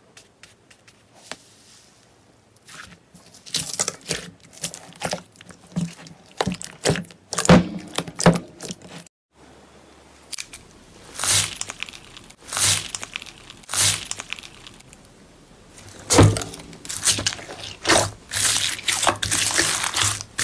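Hands pressing and squeezing slime, giving a run of crackling, squelching pops about one to two a second. The first half is a frothy whipped-milkshake slime; after a short break about nine seconds in, a clear green slime full of small plastic beads crunches and squelches as it is pressed and kneaded.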